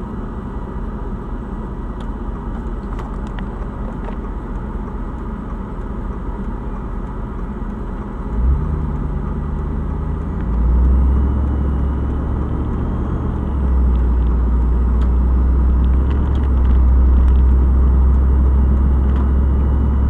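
Car's own engine and road noise heard from inside the cabin: a low steady hum while stopped, then from about eight seconds in a louder low drone that builds in steps as the car pulls away and gathers speed.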